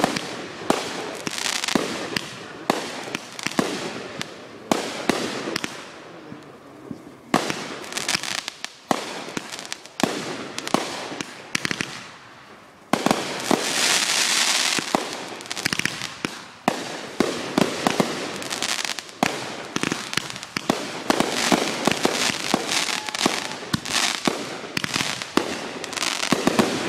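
Aerial fireworks bursting in quick succession: a dense, continuous run of bangs and crackles, with a stretch of steady hissing crackle a little past halfway through.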